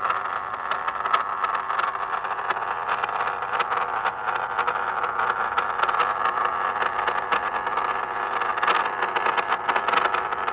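Stepper motor turning the knob of an old NTE antenna rotor controller through an aluminium shaft hub and bracket: a steady whine with a fine, rapid rattle as it drives the rotor to a new heading.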